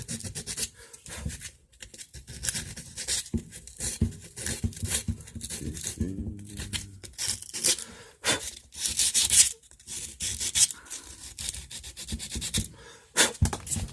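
Wooden walking stick being shaped by hand with sandpaper and files: irregular rubbing and scraping strokes on the wood.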